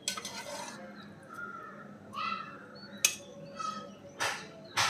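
Metal slotted spoon clinking and scraping against a stainless steel pressure cooker as gravy is spooned onto rice, several sharp clinks, the loudest about three seconds in. A bird calls a few times in the background.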